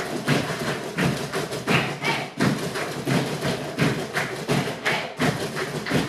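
A group of cajóns (wooden box drums) played together, a driving rhythm of deep thumps and sharper taps, a few strokes a second.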